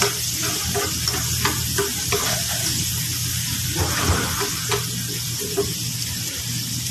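Chopped garlic sizzling in hot butter and oil, frying toward golden brown, with a steady hiss. A metal slotted spatula stirs it, scraping and clacking against the pan every second or so.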